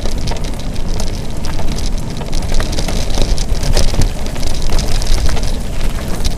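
Mountain bike riding fast on dirt singletrack: a steady low rumble from the tyres and wind on the microphone, with a constant patter of small clicks and rattles from the bike.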